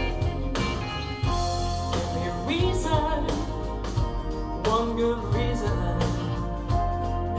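Music: a song with a singing voice over bass and a steady beat.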